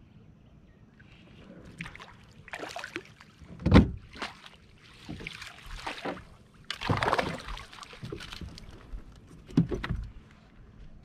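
Water splashing and knocks against a fishing kayak as a hooked fish is fought up alongside, with a heavy thump about four seconds in and another near the end.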